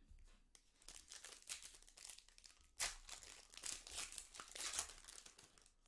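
Wrapper of a pack of football trading cards being torn open and crinkled by hand, a run of quick, faint crackles with a louder one about three seconds in.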